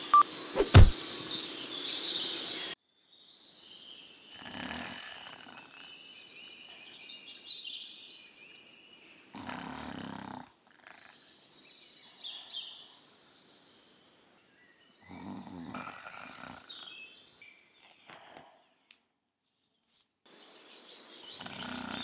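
A person snoring, one rough snore about every five seconds, with birds chirping throughout. The first few seconds hold louder birdsong and a single sharp knock.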